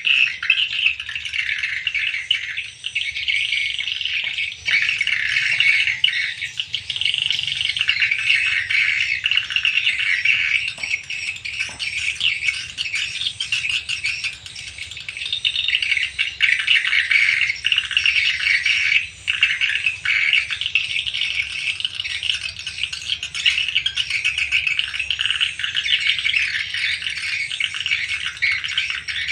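Dense, unbroken twittering of swiftlets, many chirping and rattling calls overlapping.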